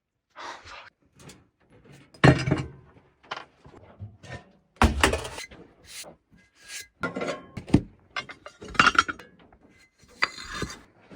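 Irregular clinking, clattering and thunking of hard objects being handled and knocked together, several sharp knocks among lighter clinks.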